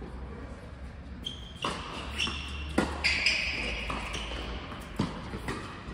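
Tennis balls struck by racquets and bouncing on an indoor hard court during a doubles rally, with about three sharp hits.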